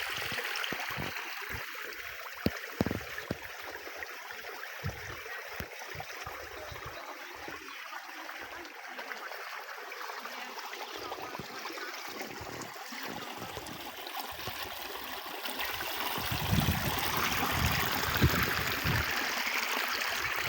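A stream flowing with a steady rushing and trickling, with scattered low thumps and a low rumble that grows stronger near the end.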